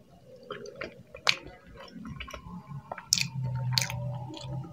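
Close-miked chewing of a half-boiled egg, with wet mouth sounds and sharp lip smacks at irregular moments. A low hum of about a second comes in after the middle.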